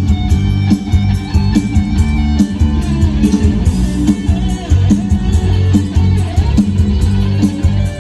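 Live Isan band music played loud through a concert PA system, with guitar, bass and a steady beat.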